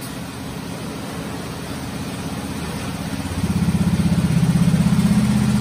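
A motor running with a rapid, even pulse; it steps up clearly louder about three and a half seconds in.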